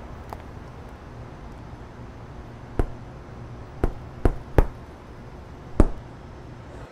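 Knuckles knocking on a door: five sharp knocks in an uneven pattern, one about three seconds in, three close together around four seconds, and a last one near the end, over a low steady hum.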